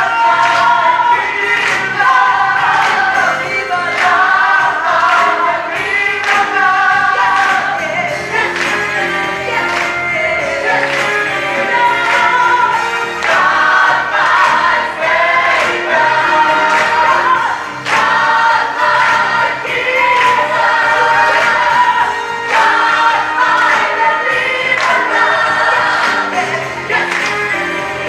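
Gospel choir singing an up-tempo song with a steady beat.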